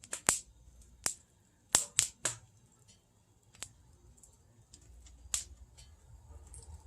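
Wood fire crackling in a wood stove insert: irregular sharp pops and snaps, several close together about two seconds in, over a faint low hum.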